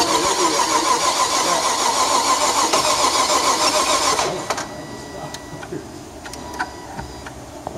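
Nissan 370Z's 3.7-litre V6 turning over on the starter in a steady pulsing crank without catching, then stopping about four seconds in, leaving a few faint clicks. The engine won't start after overheating and blowing its head gasket.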